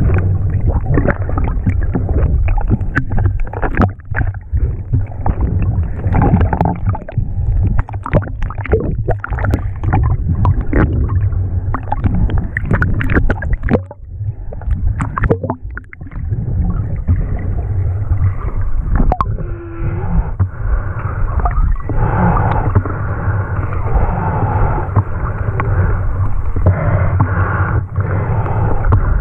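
Muffled underwater sound picked up by a waterproof GoPro below the surface: water gurgling and rushing around the camera as the snorkeller swims, with many small clicks and knocks and no high end.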